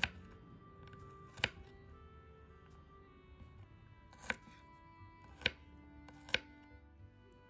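Kitchen knife chopping garlic cloves on a wooden cutting board: five sharp blade strikes against the board, unevenly spaced, three of them close together in the last few seconds.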